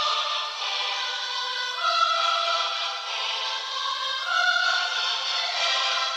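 Background music: choral singing with long held notes.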